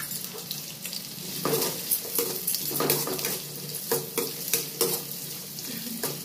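Sliced onions and garlic sizzling in hot oil in a pan on a gas stove. From about a second and a half in, a spoon stirs them round the pan with repeated clinks and scrapes against it.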